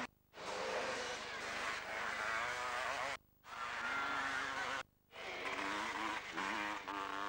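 500cc two-stroke motocross bikes racing, their engines revving with the pitch rising and falling on and off the throttle. The sound comes in three short takes separated by brief gaps of silence.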